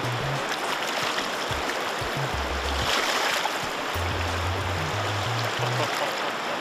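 Steady rush of a shallow river running over stones, with the low bass notes of background music stepping underneath.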